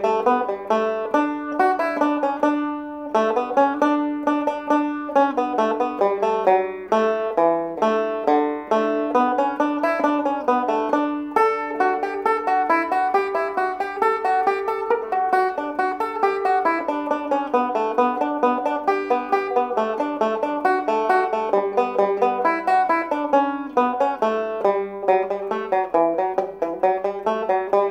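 Four-string Irish tenor banjo tuned GDAE, played solo: a continuous melody of quick, bright plucked single notes.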